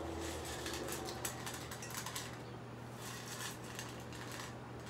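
Dog food being stirred and rattled by hand in a stainless steel bowl: light, irregular clicking and rattling of the pieces against the metal.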